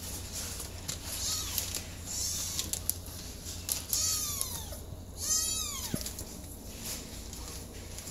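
Kittens mewing: a short mew about a second in, then two longer calls about four and five seconds in that fall in pitch, among light clicks and rustles.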